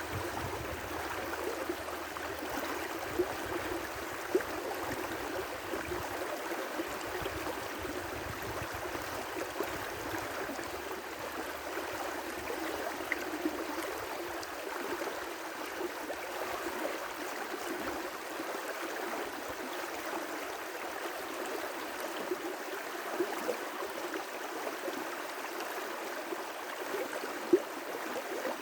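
River rapids rushing steadily, with a few brief louder splashes.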